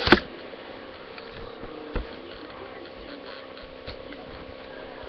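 A few sharp knocks and clicks from the webcam being handled: a loud one at the start, another about two seconds in and a fainter one near the end, over a steady faint hum.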